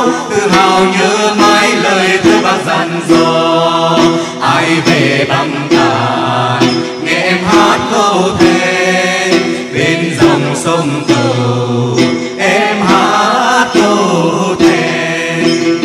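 Hát then singing: voices sing a drawn-out, ornamented melody over plucked đàn tính (Tày long-necked gourd lute) strings in a steady rhythm.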